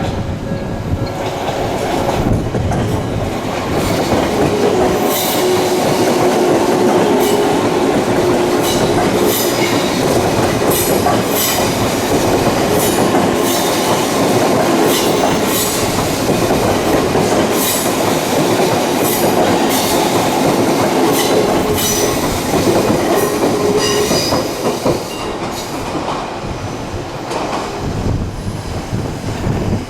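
Electric train passing at a level crossing, its wheels clacking over rail joints in a long regular run, with a steady whine underneath. It builds over the first few seconds and dies down near the end.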